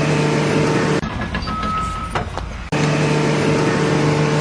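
A steady mechanical hum, like a running engine or motor, heard over noise. It breaks off abruptly about a second in for a noisier stretch with a short high tone and a few clicks, then comes back suddenly.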